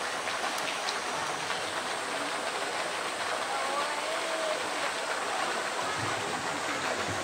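Steady rush of flowing water, an even hiss that holds the same level throughout, with no distinct splashes or knocks.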